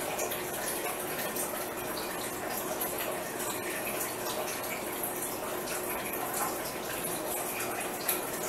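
Steady hissing, rushing noise with a faint low hum under it.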